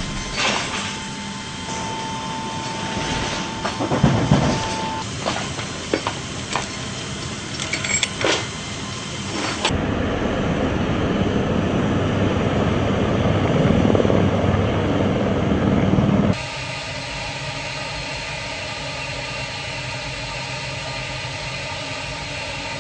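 Military transport aircraft noise edited in three parts. First, clicks and a steady beeping tone that stops about a fifth of the way in. Next, a louder rushing rumble of jet engines on the flight line that builds, then cuts off abruptly about two-thirds in. Last, a steadier hum with several held tones inside the cargo bay.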